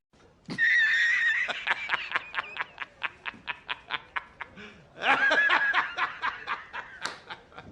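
High-pitched laughter: a squealing laugh, then a fast run of short laughs about seven a second, and another drawn-out squealing laugh about five seconds in.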